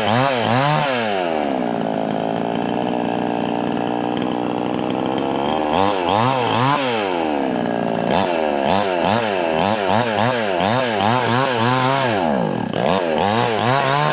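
Petrol chainsaw with a 20-inch bar running: it holds a fairly steady speed for a few seconds, then is revved up and down over and over, quickly toward the end.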